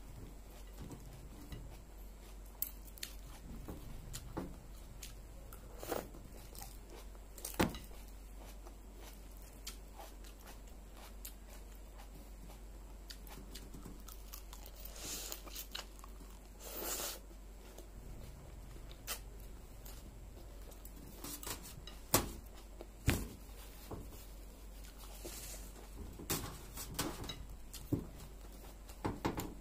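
Close-up chewing of a fresh green salad: crisp lettuce and cabbage leaves crunching in the mouth, with sharp crunches at irregular intervals over a faint low hum.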